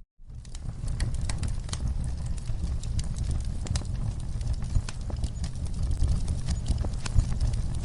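Wood fire crackling in a fireplace: irregular sharp pops and snaps over a steady low rumble of flame. The sound cuts out for a split second right at the start.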